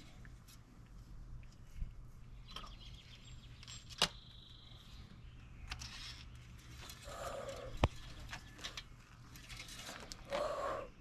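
Quiet with a few sharp clicks, one about four seconds in and one near eight seconds: the engine oil dipstick being pulled and pushed back into its tube to check the level after a top-up.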